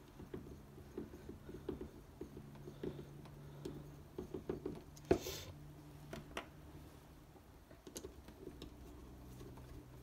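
Screwdriver backing small screws out of a neutral safety switch housing: light irregular clicks and scrapes of metal on metal, with one sharper knock about five seconds in, over a faint steady hum.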